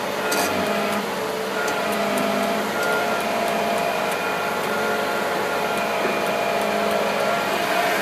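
Vehicle hoist running: a steady mechanical hum with faint steady tones and scattered light ticks, the abnormal noise the hoist is being run to reproduce.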